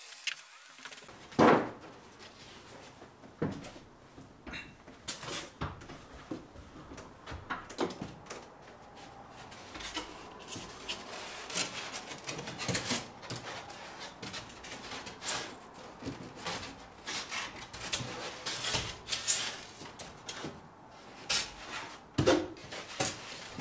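Rigid XPS foam board baffles being handled and pushed up between wooden rafters: scattered knocks, rubs and squeaks of foam against wood, the loudest a thump about a second and a half in and two more near the end.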